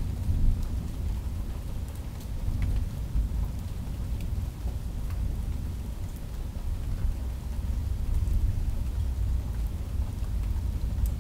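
Thunderstorm: a low rumble of thunder that swells and eases, over steady rain with scattered drop ticks.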